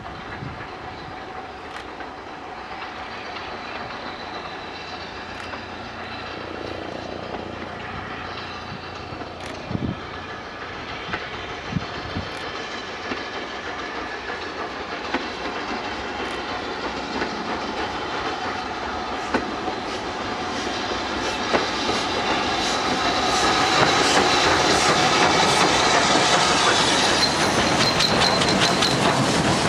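Steam-hauled passenger train approaching and passing close by, growing steadily louder throughout. In the last few seconds, as the locomotive and coaches go by, the wheels click rhythmically over the rail joints.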